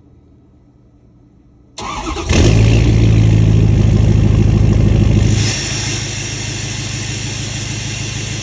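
Ford 6.7L Power Stroke turbo-diesel V8 in a 2015 F-350, with a 5-inch turbo-back exhaust, starting about two seconds in: a brief crank, then it catches and runs loudly at a high idle for about three seconds before dropping to a quieter steady idle.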